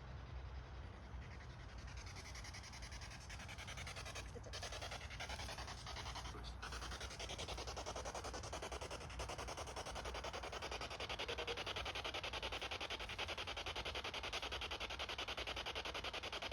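Ghost-hunting spirit box sweeping through radio frequencies: a rapid, choppy hiss of static that grows a little louder as it goes.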